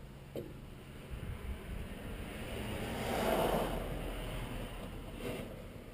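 Muffled rustling and handling noise picked up by a race-car cockpit camera in its housing, swelling about three seconds in, over a low steady hum.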